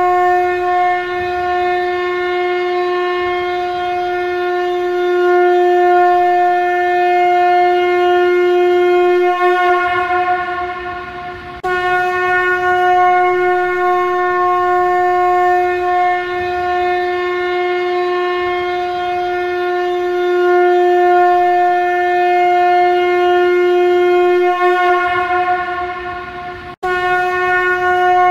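Shankha conch shell blown as a trumpet: long blasts on one steady note, each held for about fifteen seconds. One blast fades away near the middle and a new one starts right after. Another fades near the end and breaks off abruptly as the next begins.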